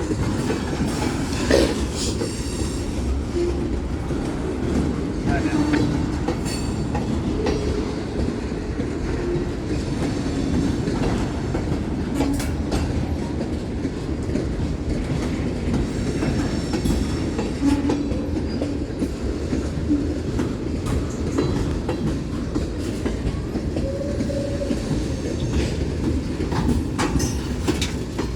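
Manifest freight train cars rolling past at close range: a steady rumble of wheels on rail, with repeated clicks as the wheels cross rail joints.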